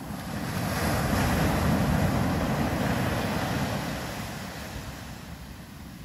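Ocean surf: a wave washing up the shore, its rush swelling over the first two seconds and fading away by about five seconds in.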